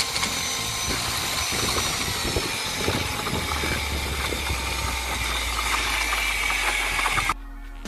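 Power drill with a paddle mixer running steadily in a bucket, stirring concrete mix as dry mix is poured in; the motor whines with a scraping, churning noise. It cuts off abruptly near the end, where music comes in.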